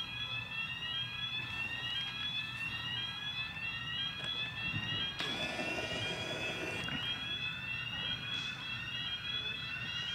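Electronic railway warning alarm sounding at the station, a tone that sweeps upward and drops back about once a second, repeating steadily, over a low hum. A brief rustle breaks in about halfway.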